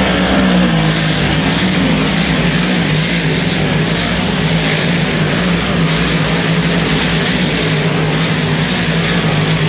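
Pack of big-block V8 dirt modified race cars running hard through a turn on a dirt oval, close by. The engines make a loud, continuous drone that wavers slightly as cars pass.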